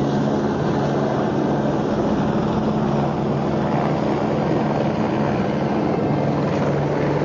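Helicopter in flight, a steady drone of engine and rotor noise with a low hum.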